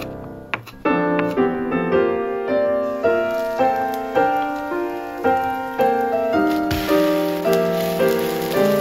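Piano music, notes struck about every half second. In the first second, a few knife chops on a wooden cutting board.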